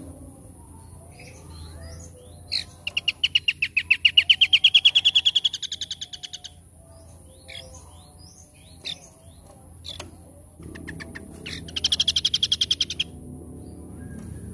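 A songbird singing two rapid trills of evenly repeated notes. The first lasts about four seconds and rises slightly in pitch; the second, shorter one comes near the end. Softer short chirps from other birds fall between them.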